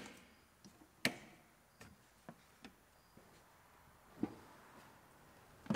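A few faint, sharp plastic clicks and light knocks: a plastic seat trim cover being handled and clipped into place, the clearest click about a second in and a duller knock near the end.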